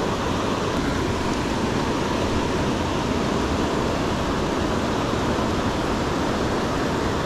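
Fast-flowing river rushing steadily over rocks, an even roar of moving water.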